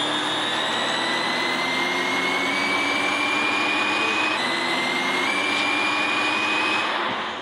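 Simulated vehicle drive sound from a phone speedometer app: a steady rushing noise with a whine that rises slowly in pitch as the shown speed climbs, dips once about four seconds in, then fades out near the end.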